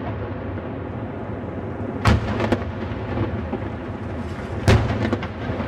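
Two loud fireworks shell bangs about two and a half seconds apart, each followed by a few smaller cracks, over a steady low rumble.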